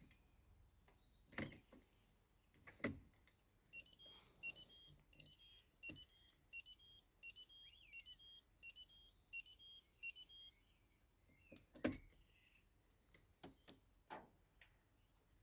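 A Peugeot Expert van's electronic warning beeper sounds a run of short beeps, about two a second for some seven seconds, between several sharp clicks. No starter motor turns and no engine runs, fitting a no-crank, no-start fault.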